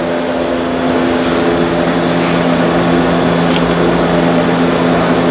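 Steady machine drone at a constant pitch, from a motor or engine running in the workshop.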